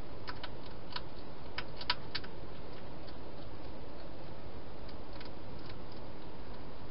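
A hedgehog eating at its bowl inside a plastic feeding box, making scattered sharp clicks. The clicks bunch in the first two seconds, the loudest just before two seconds in, and a few more come around five seconds in, over a steady hiss.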